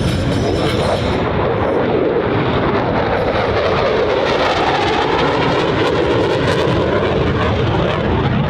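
Loud, steady jet noise from a Boeing EA-18G Growler's two General Electric F414 turbofan engines as the jet flies its display, the tone shifting slowly about halfway through.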